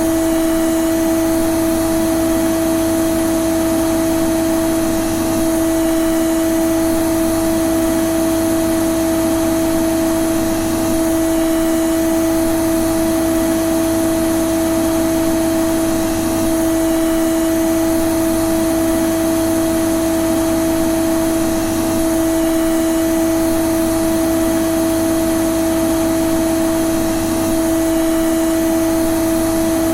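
Vacuum cleaner (hoover) running steadily and continuously: an even motor hum with a higher tone above it, over a rushing hiss of air.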